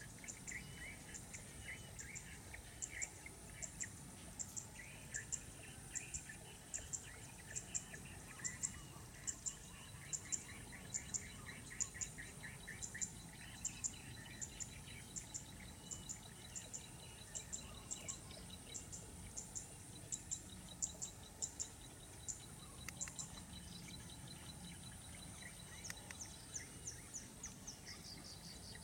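Small birds calling in a rice paddy: short high chirps repeating about twice a second, with spells of rapid chattering notes lower down, over a steady high drone of insects.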